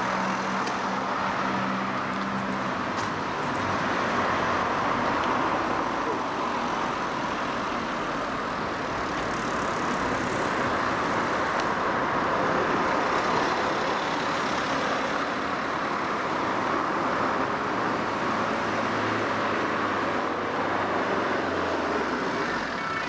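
Steady road traffic noise of a city street, with the low hum of a vehicle engine that drops in pitch shortly before the end.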